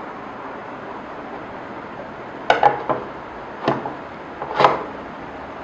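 Three short clusters of knocks and clatters, about a second apart, from a hard object being handled and set down, over a steady hiss.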